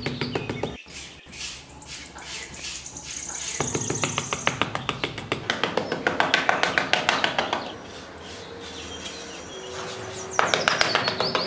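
Birds chirping, with quick, light ticks through much of it.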